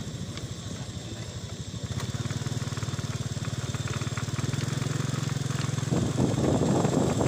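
Small motorcycle engine running steadily while riding along a dirt road, picking up a little about two seconds in, with a rougher, noisier patch near the end.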